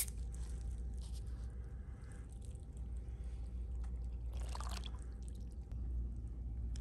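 Water in a plastic tub moving and dripping as a sneaker sole is pressed down into paint-and-glitter-covered water for hydro-dipping. There is a brief louder swish about four and a half seconds in, over a low steady hum.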